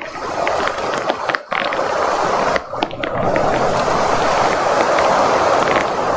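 Heavy rain pouring down during a thunderstorm: a steady hiss with scattered drop clicks.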